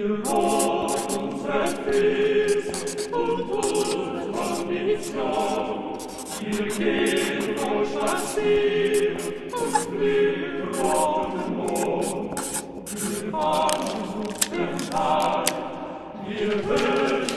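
Music: a choir of voices singing a cappella, with sharp clicks running through it.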